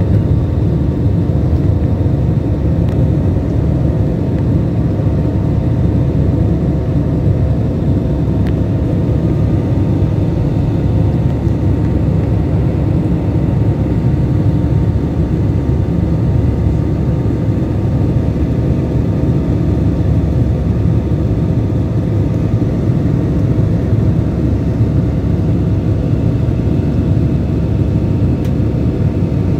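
Jet airliner cabin noise during the climb after takeoff: a loud, steady low rumble of engines and airflow heard from a window seat over the wing, with a few faint steady hums above it.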